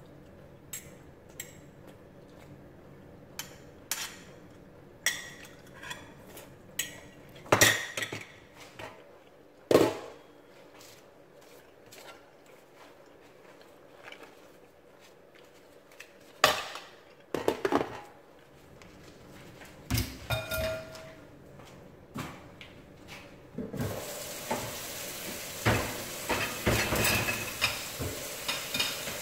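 Metal utensils and a pan lid clinking and knocking against a stainless steel pan of pasta, in scattered separate strikes. About 24 seconds in, a steady sizzling hiss from the pan starts under the clinks.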